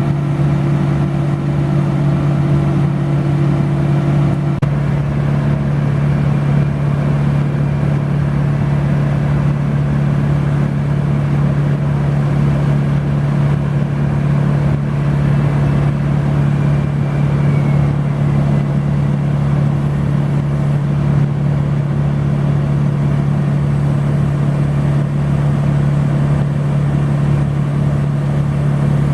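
A large engine on tree-removal equipment running steadily at constant speed, with a low, even hum. A higher tone in it drops out about four seconds in.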